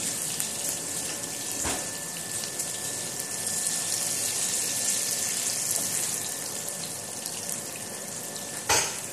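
Onions and garlic sizzling in hot oil in a frying pan, a steady frying hiss with the oil spattering. A sharp knock of the wooden spatula against the pan comes near the end.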